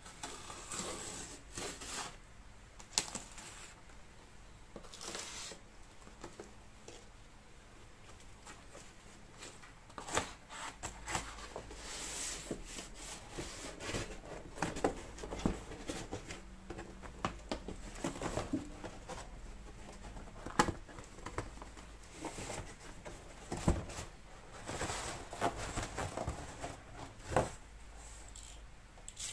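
Large cardboard box being opened by hand: packing tape cut and torn along the seams, and the cardboard flaps rustling and scraping, with scattered sharp taps and knocks. It gets busier and louder about halfway through.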